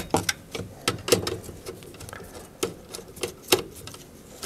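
A small screwdriver and wire ends clicking and scraping against the plastic terminal block of a variable frequency drive as a wire is seated and its terminal screw tightened. The clicks come irregularly, a few a second.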